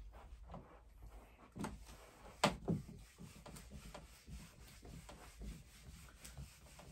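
Faint rubbing and scattered light clicks of handling at a desk, with a sharper click about two and a half seconds in.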